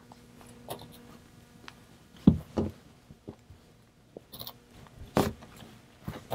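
Heavy upholstery canvas being handled and pinned on a worktable: quiet rustling with a few soft knocks, the loudest about two seconds in and again around five seconds in.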